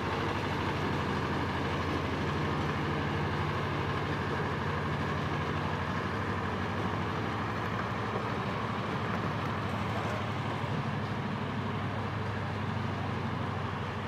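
An engine running steadily at one speed: a low, even drone with a hiss over it.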